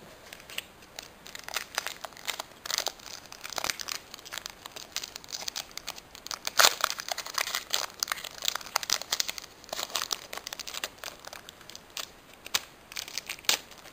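Foil wrapper of a Pokémon trading-card booster pack crinkling and crackling in the hands as it is handled and torn open, with a sharp crackle about halfway through as the loudest.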